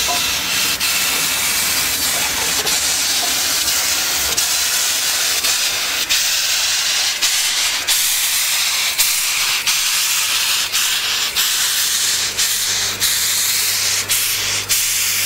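Loud steady hiss of steam venting from a passing steam locomotive, with irregular sharp clicks from the train running over the track. Near the end a steady low hum comes in as the train's power car goes by.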